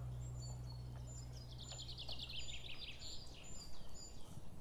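Birds calling: short high whistled notes repeat about twice a second, with a fast descending trill about a second and a half in. A low steady drone underneath fades out about three seconds in.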